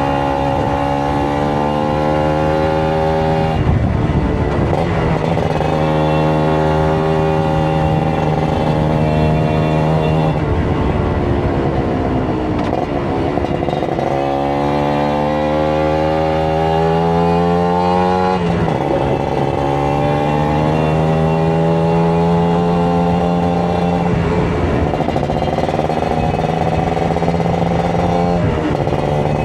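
Kawasaki Ninja RR 150's two-stroke single-cylinder engine under way, its note rising and falling with the throttle and breaking off several times as the revs change.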